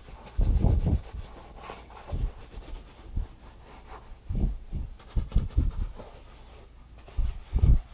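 Foam sponge rubbing leather conditioner into a motorcycle seat in irregular scrubbing strokes.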